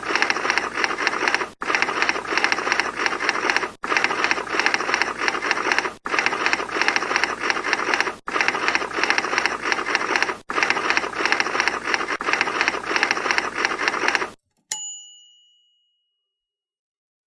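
Manual typewriter keys clacking in a rapid, continuous stream, broken by brief gaps about every two seconds. The typing stops near the end and the typewriter's bell gives a single ding that rings out.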